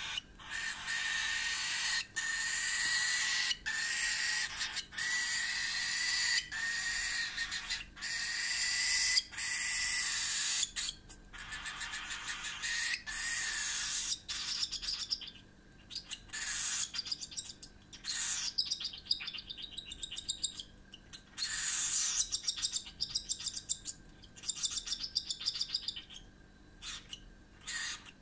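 Cockatiel chick giving harsh, noisy begging calls while being fed baby cereal. At first a long call comes about once a second; in the second half the calls break into quicker, choppier pulses.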